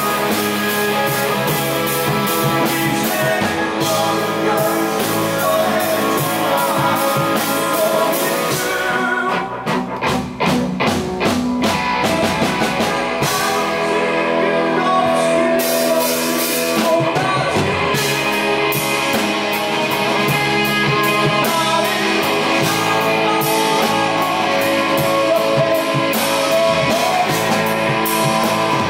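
Live rock band playing: electric guitars, electric bass and a drum kit together, with a short thinned-out break of a few beats about ten seconds in.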